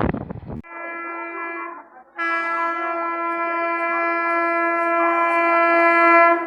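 Horn of an Indian Railways WAP-4 electric locomotive: a short blast, then after a brief gap a long steady blast of about four seconds that grows louder as the locomotive approaches.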